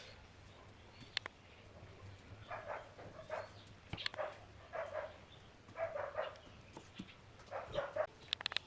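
A dog barking repeatedly, about one bark a second, fairly faint.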